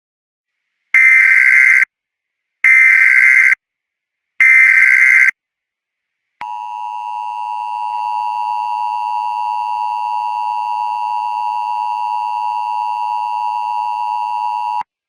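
Emergency Alert System tones. Three separate header data bursts of about a second each are followed by the two-tone attention signal, which holds steady for about eight seconds and then cuts off. This signals the start of a new alert.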